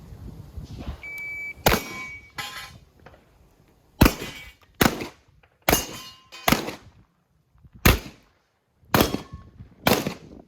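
A short electronic shot-timer beep, then about nine shotgun shots fired at an uneven pace from a Beretta 1301 Comp Pro semi-automatic shotgun. A few shots are followed by a brief metallic ring.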